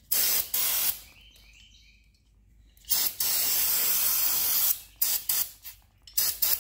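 Aerosol can of carb cleaner spraying in spurts: two short hisses at the start, a pause, then a long spray of nearly two seconds followed by several short bursts.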